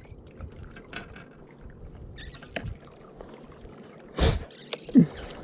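Scattered small clicks and rustles of gloved hands handling a freshly caught fish, with a loud brief thump about four seconds in and, just after it, a short low sound that falls in pitch.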